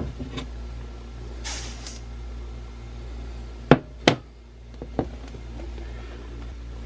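Kitchen handling noises while measuring pollen supplement and sugar: a short rustle, then three sharp clacks of containers or utensils being set down, over a steady low hum.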